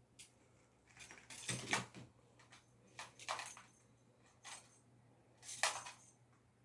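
A series of short knocks and clatters, the loudest about a second and a half in and again near six seconds.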